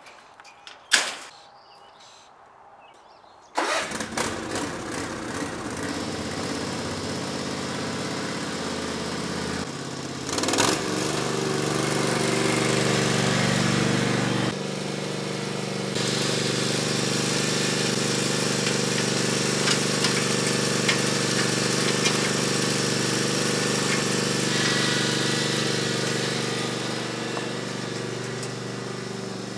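A sharp knock about a second in, then the small engine of a riding lawn mower starts suddenly and keeps running steadily as the mower drives off over gravel, growing a little fainter near the end.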